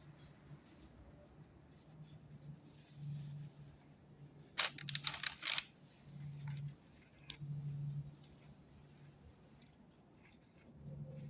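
Plastic spreader scraping and clicking against the fiberglass as filler is worked into dremeled-out cracks, with a short burst of sharp scraping clicks about halfway through.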